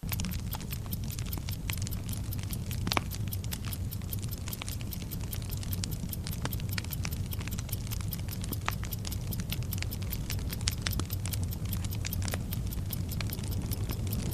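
Timer sound effect: a fast, steady clock-like ticking over a burning fuse that hisses and crackles irregularly, with a steady low rumble beneath.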